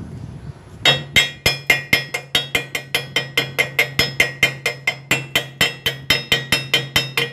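Chipping hammer striking the fresh stick weld on thin square steel tubing, knocking the slag off. The blows are rapid and even, about four a second, with a ringing metallic note, starting about a second in.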